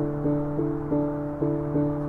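Soft instrumental background music, a gentle melody whose notes change about every third to half second.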